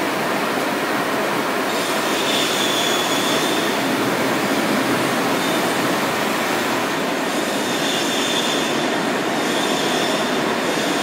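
Steady rushing air noise from an electrostatic powder coating booth's fans and air system running, with a faint high whistle coming in about two seconds in and again later.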